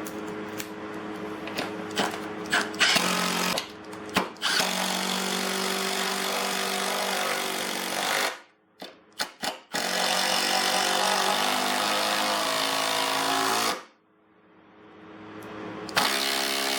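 Milwaukee M18 Fuel Gen 3 cordless impact driver hammering SPAX screws into wood, loud. It runs in long bursts with short trigger blips and pauses between screws.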